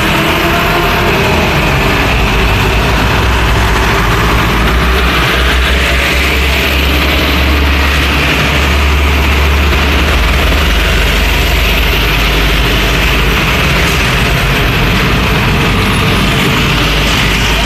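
Street traffic at close range: light diesel trucks pulling away and driving past, with motorbikes, their engines making a steady low rumble that is heaviest in the middle.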